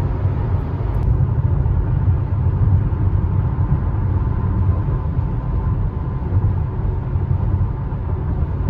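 Steady low rumble of road, tyre and engine noise heard inside the cabin of a Renault QM6 LPG SUV driving on the expressway, with a faint steady whine.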